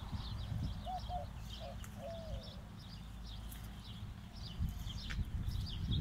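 A dove cooing a short phrase of four notes about a second in, the last note longer and falling, while small birds chirp repeatedly in the background over a low rumble.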